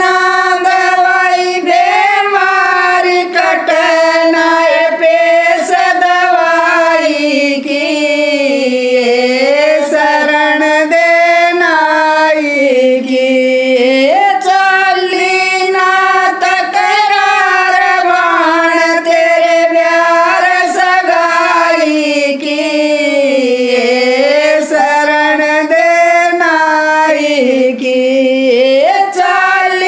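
Women singing a Haryanvi jakdi folk song together without instruments, in long drawn-out notes that rise and fall.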